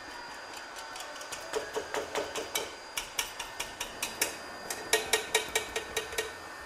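Repeated sharp pricking taps, about four a second, starting about a second and a half in: the roasting animal's skin being pricked with a pointed tool so the glaze soaks in and the skin crisps.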